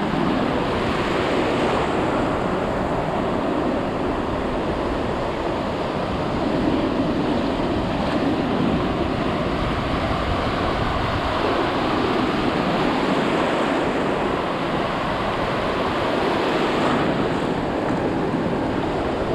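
Waves breaking and washing in over shallow beach water: a steady rush of surf, with wind buffeting the microphone.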